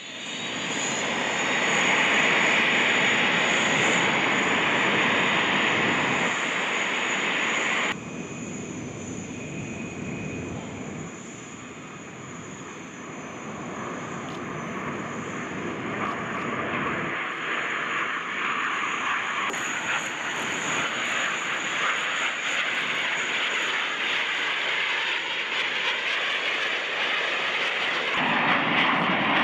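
Jet engines of a formation of Aermacchi MB-339 jet trainers running, loud with a steady high whine. About eight seconds in the sound drops abruptly to a more distant rushing jet noise, which builds again toward the end as the formation passes.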